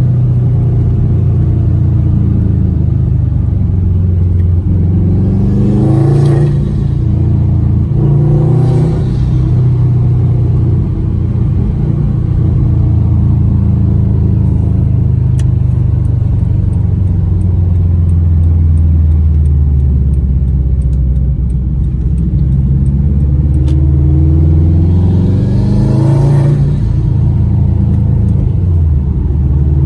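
Turbocharged Subaru WRX flat-four engine, breathing through a Cobb SF intake, rising in pitch under throttle three times. Each pull ends in a short turbo whoosh and flutter from a GFB blow-off valve, at about six and nine seconds in and again near the end, with steadier low running between. A faint rapid ticking comes in the middle stretch.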